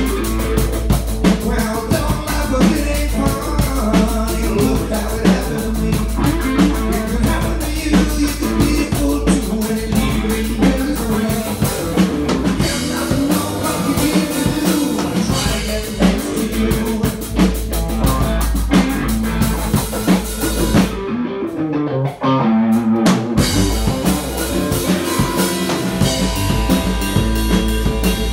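Blues band playing live: electric guitars, electric bass, keyboard and drum kit over a steady beat. About three-quarters through, the beat and low end stop for about two seconds, then the full band comes back in.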